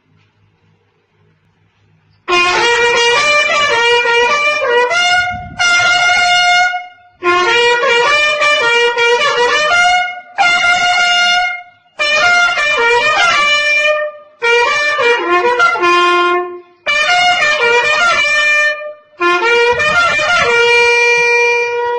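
A wind instrument playing a melody in about eight short phrases with brief breaks between them, ending on a held note.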